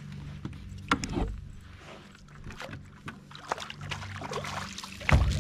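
Knocks and bumps on a plastic fishing kayak and water sloshing as the angler moves his rod around, with a loud thump about a second in and another near the end, over a steady low hum.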